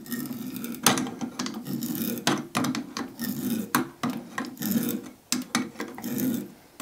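Threading die cutting an 1/8 BSP thread on a small brass fitting, turned by hand in short strokes with an adjustable spanner: a run of rasping, rubbing strokes broken by several sharp clicks.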